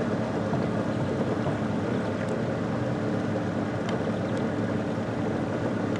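Boat motor running steadily while trolling: a constant even hum with a hiss over it.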